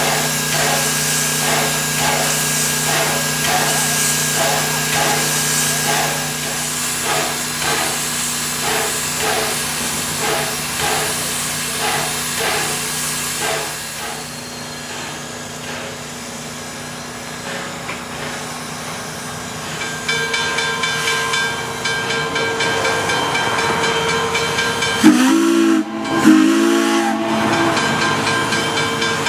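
Wilmington & Western No. 58, an 0-6-0 steam locomotive, standing with steam hissing and a rhythmic pulsing about twice a second, which later gives way to a quieter hiss. Near the end its steam whistle sounds two short blasts, the usual signal that the train is about to move off.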